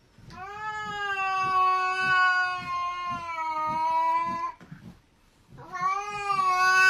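A cat yowling: one long drawn-out call of about four seconds whose pitch sags slightly, then after a short pause a second long call starts near the end.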